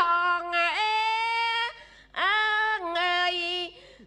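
Khmer ayai repartee singing: one voice sings two long drawn-out phrases, each settling onto a steady held note, with a short break between them.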